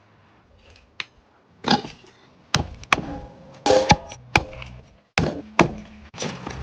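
A run of about ten sharp knocks and thuds at irregular spacing, some close together in pairs.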